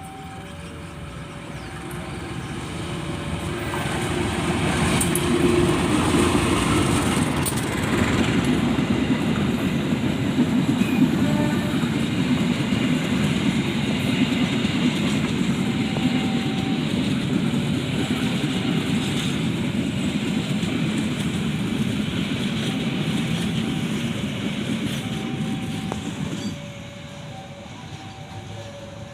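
A train passing close by: its rumble builds over the first few seconds as it approaches, runs loud while the cars go by, and drops away abruptly near the end as the last car passes. Throughout, a two-note warning signal alternates steadily in the background.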